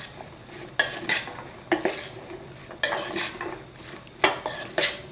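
Metal utensils scraping and clinking against a dish in a series of quick strokes as food is mixed and stirred.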